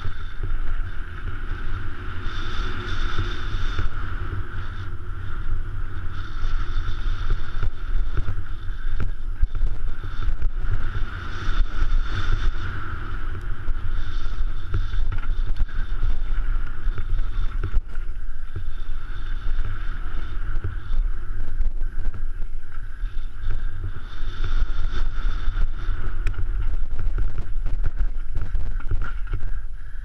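Wind buffeting a GoPro's microphone during a fast mountain-bike descent, over the constant rumble and rattle of the YT Capra's knobbly tyres and frame on a loose gravel and rock trail. A higher whirring rises and falls in a few stretches.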